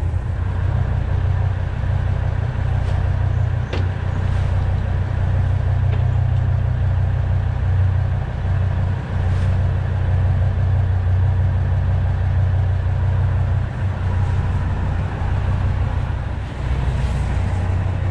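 Diesel engine of a Procharter P4 charter boat running steadily, a constant low hum with a few faint clicks.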